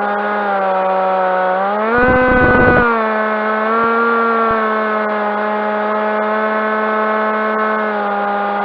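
Electric motor and propeller of a Skywalker FPV plane running under power, a steady whine with a low rumble. The pitch rises with throttle about two seconds in, a low rumble runs briefly with the rise, and the pitch eases back down near the end.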